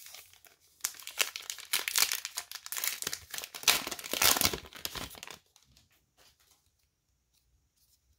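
A 2019 Topps Heritage High Number trading-card pack wrapper being torn open and crinkled by hand. It makes a dense crackling rustle that starts about a second in and stops after about five seconds.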